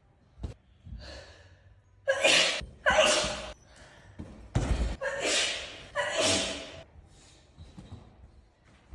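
A woman's sneezing fit: four loud sneezes in two close pairs, the second pair about three seconds after the first, with a low thud between the pairs.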